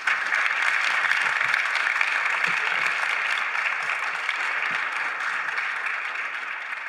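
Audience applauding, starting all at once and slowly fading away.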